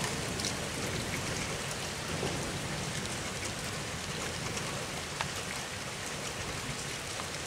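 Heavy rain from a squall-line thunderstorm, a steady hiss with scattered sharp ticks of drops striking close by.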